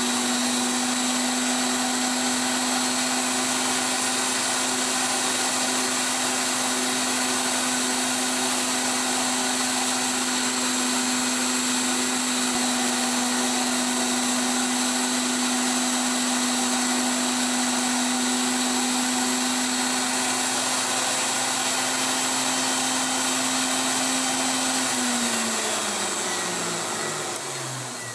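Tool post grinder running steadily while its freshly dressed wheel rough-grinds the R8 taper on a steel arbor turning in the lathe, throwing sparks. The sound is a steady motor tone with a grinding hiss over it. Near the end the motor is switched off and runs down, its pitch falling as the sound fades.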